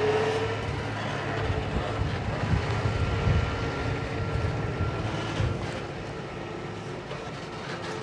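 Tractor engine running steadily as it pulls a Warwick tandem-axle grain trailer past over gravel, the trailer's wheels rolling on the stones.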